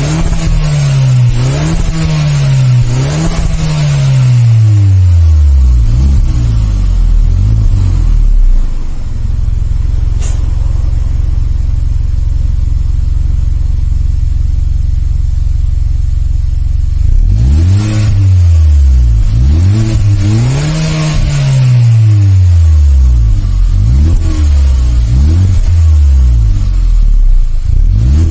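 Exhaust of a 2018 Hyundai Elantra Sport, stock, from its 1.6-litre turbocharged four-cylinder: a run of quick throttle blips about once a second that settles to a steady idle for roughly eight seconds in the middle, then a fresh series of revs rising and falling.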